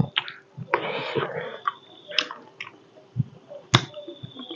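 A person chewing a mouthful of rice and curry, with wet smacking and sharp lip-smack clicks at irregular intervals.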